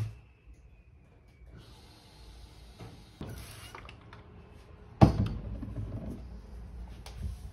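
Trigger spray bottle squirting cleaner onto a wardrobe's mirror door in short hissing bursts, with one sharp knock about five seconds in, the loudest sound, as the door or bottle is handled.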